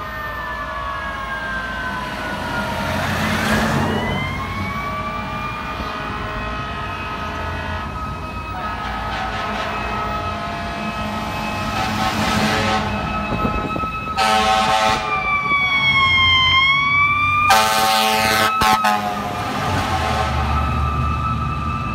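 FDNY fire apparatus sirens wailing, their pitch sweeping down and up, with two long air-horn blasts about two-thirds of the way through, over the rumble of truck and traffic engines.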